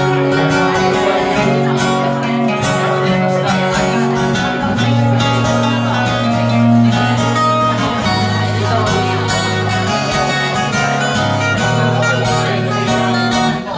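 Two acoustic guitars played together live, with a steady strummed and picked rhythm over held bass notes.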